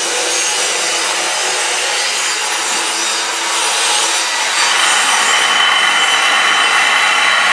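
Steady rasping, grinding machine noise. A bit past halfway it grows slightly louder and a steady high whine joins in.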